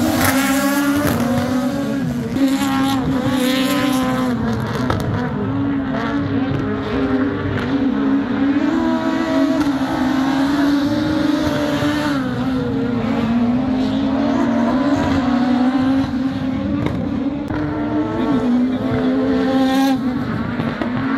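Rallycross race cars' engines running hard as the cars lap the circuit, the pitch repeatedly rising and falling as they rev up and change gear.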